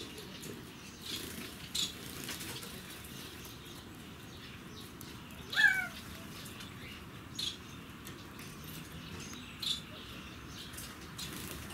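Birds in an aviary of California quail and Bengalese finches calling. One loud, drawn-out call falls in pitch about halfway through, and short high chirps come every few seconds.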